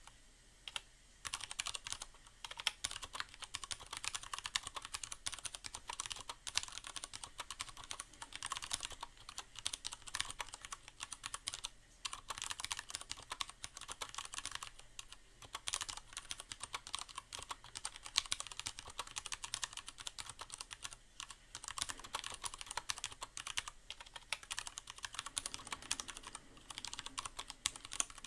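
Fast, continuous typing on a Leopold FC750R mechanical keyboard with Cherry MX Brown switches and a sound-absorbing pad inside the case: a dense stream of key strokes, with a brief pause about a second in.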